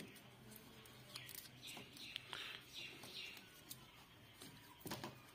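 Faint crinkling and rasping of tape being wrapped around an AC drain pipe joint, five or six short scratchy strokes with a few light clicks, over a faint steady low hum. A light knock near the end.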